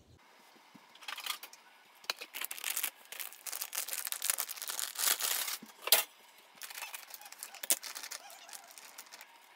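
Plastic packet of hotteok mix crinkling and rustling as it is opened and handled over a glass bowl, with a sharp click about six seconds in.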